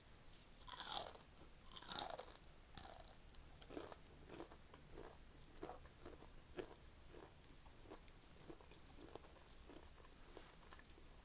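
Someone biting into crunchy fried food and chewing it. Three loud crunching bites come in the first three seconds or so, followed by steady chewing with softer crunches about twice a second that grow fainter.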